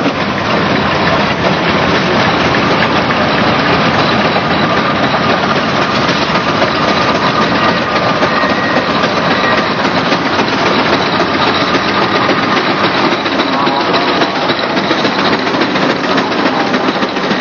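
Steam traction engine running: a loud, steady, dense noise, with a faint high tone through the middle.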